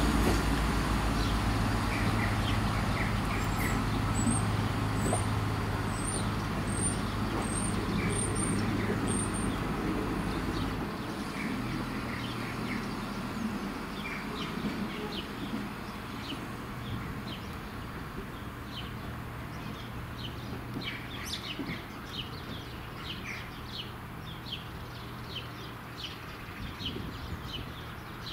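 Class 170 Turbostar diesel multiple unit pulling away: a low engine drone that drops in note about eleven seconds in and fades as the train draws off. Small birds chirp over it, thickly in the second half.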